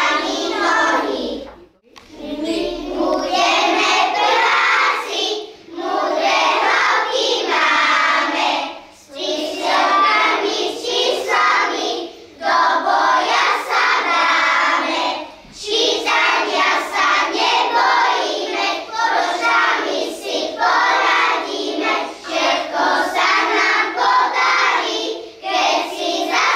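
A group of young children singing a Slovak children's song together, phrase by phrase with short pauses between.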